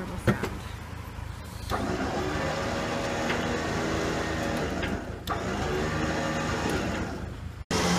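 Flatbed recovery truck's machinery running with a steady mechanical hum as a broken-down car is loaded onto the bed, growing louder about two seconds in, with a couple of sharp metallic clicks. The sound cuts off abruptly near the end.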